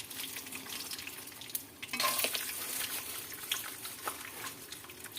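Soybeans frying in hot oil in a pan: a steady sizzle full of small crackling pops, stirred now and then, with a louder burst of sizzling about two seconds in.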